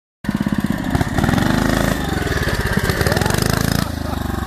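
A mini bike's small single-cylinder engine running, its pitch rising and falling as the throttle is worked. It cuts in suddenly just after the start.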